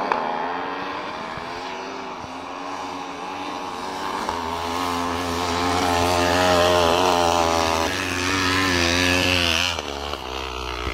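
Snow bike engine, a dirt bike fitted with a ski and track kit, revving hard, its pitch rising and falling as the throttle works. It gets loudest a little past the middle as the bike comes close.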